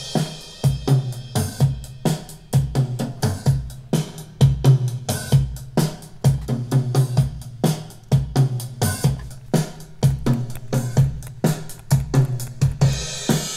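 Soloed drum-kit track of a rock recording playing a steady beat of kick, snare, toms and hi-hat, with a cymbal crash at the start and another near the end. The kit is mixed with EQ, a limiter and an Ocean Way studio-room reverb.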